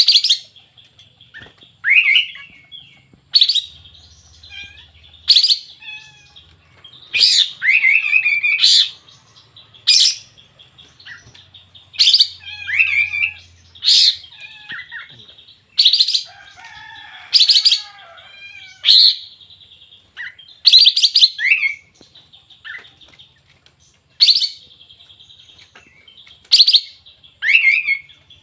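A kapas tembak, a bulbul, singing continuously in short loud whistled phrases, one every one to two seconds, many slurring downward, with a steady high trill running between them.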